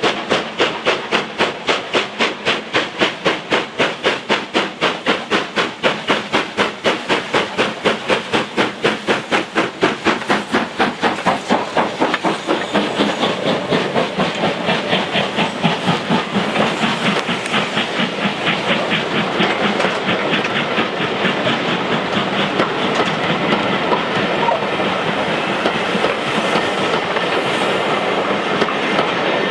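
LMS Black Five 4-6-0 steam locomotive working, its exhaust beating in a fast, even rhythm. About halfway through, the beats grow less distinct and a steady rush of wheels and carriages on the rails takes over.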